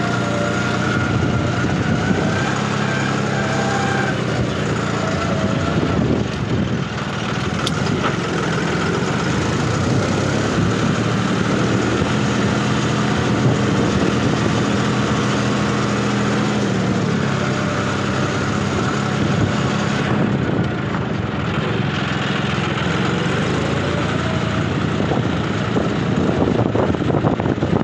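John Deere loader tractor's diesel engine running steadily, with a fainter whine above it that drifts up and down in pitch now and then.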